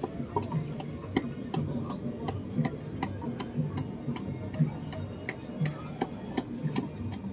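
Small hatchet chopping into a block of wood in quick, fairly regular blows, about two or three a second, each a sharp tap.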